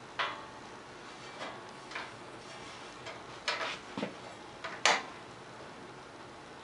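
Hand file scraping metal in short, irregular strokes, squaring out a drilled round hole to take a carriage bolt. The loudest stroke comes near the end.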